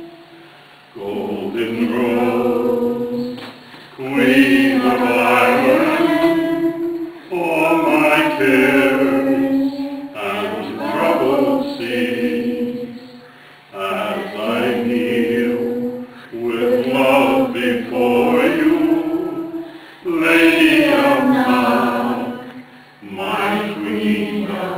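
A group of voices singing together, unaccompanied, in phrases of about two to three seconds with short breaks for breath between them.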